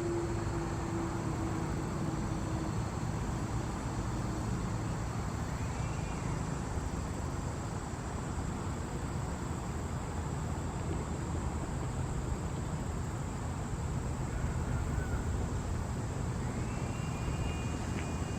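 The Federal Thunderbolt 1000 mechanical siren coasting down at the end of its test, its last low tone falling slightly and fading out over the first few seconds. After that only a steady low rumble of outdoor background noise remains, with two faint short chirps, one about six seconds in and one near the end.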